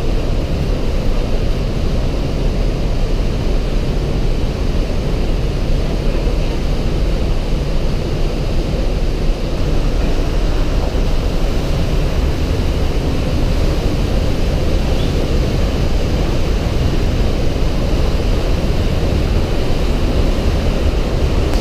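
The Breitach river rushing through a narrow rock gorge: a steady, deep roar of fast water, loud and unbroken.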